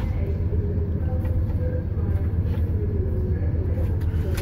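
Steady low rumble inside a train carriage as the train runs, with a few faint clicks.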